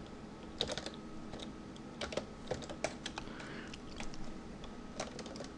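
Computer keyboard being typed on: faint, irregular key clicks, a few at a time, as a name is entered.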